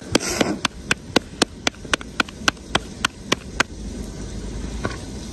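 Flatbread dough slapped from palm to palm to stretch it into a thin roti. There are about fourteen quick, even slaps, some four a second, which stop a little past halfway.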